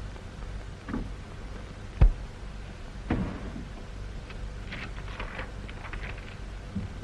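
Desk handling sounds over the hiss of an old film soundtrack. A sharp thump comes about two seconds in, and a few lighter knocks follow. Then a short run of paper rustling and crinkling.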